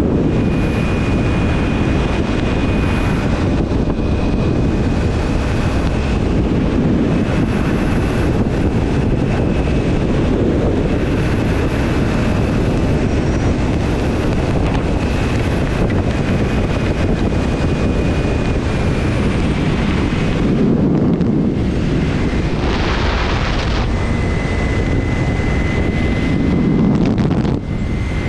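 Steady rush of wind over the microphone of a motorcycle riding at road speed, with the bike's engine and tyre noise underneath.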